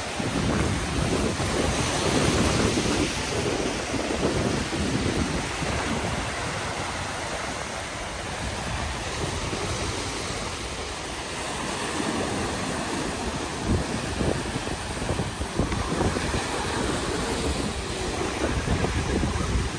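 Ocean surf breaking and washing over a rocky shore, with wind gusting on the microphone.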